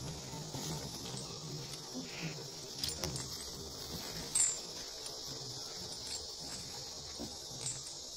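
Steady high-pitched drone of insects, with a few light metallic clinks from the chains on a walking elephant's legs, the sharpest about four seconds in.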